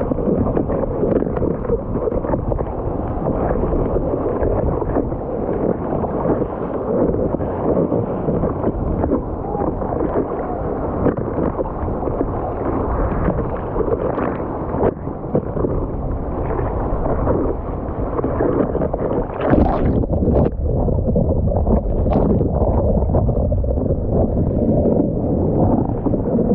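Ocean water sloshing and splashing against a bodyboard and a camera held right at the water surface, a steady churning wash with a couple of sharper splashes in the last third.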